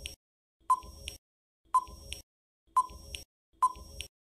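Countdown-timer sound effect: a short, sharp beep followed by a faint tick, repeating about once a second, four times.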